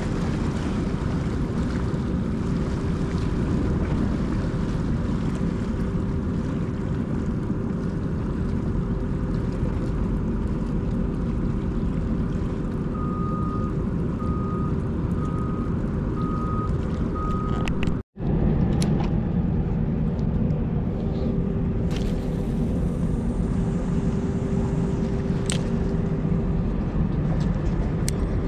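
Steady low rumble of harbour machinery and traffic with a constant hum, and a reversing alarm beeping five times about halfway through. The sound cuts out for an instant about two-thirds of the way in.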